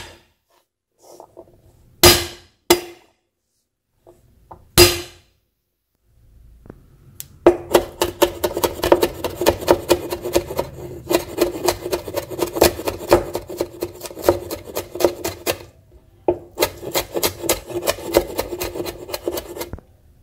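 Cleaver blade on a wooden chopping board: a few single heavy blows crushing garlic cloves and shallot, then rapid chopping as they are minced, in two long runs with a short pause between.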